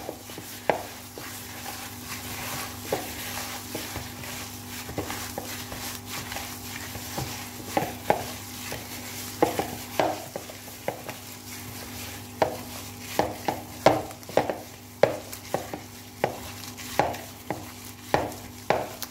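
Gloved hand creaming soft margarine and sugar in a mixing bowl: a wet squishing and rustle of the plastic glove, broken by short sharp squelches as the mixture is pressed and slapped. The squelches are sparse at first and come about one or two a second from about halfway on.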